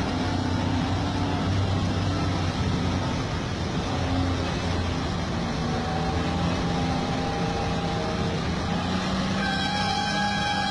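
Heavy vehicle engine running steadily with a low hum. Near the end, music with sustained tones comes in over it.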